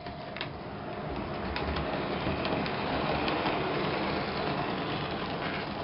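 O gauge 3-rail model train, an M.T.H. RailKing GP-30 mechanism pulling sheet-metal coaches on MTH trucks, rumbling along the track. It grows louder over the first few seconds as it approaches, with scattered sharp clicks.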